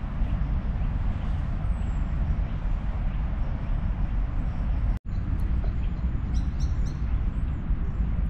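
Outdoor ambience dominated by a steady low rumble, which drops out for an instant about five seconds in, with a few bird chirps a little later.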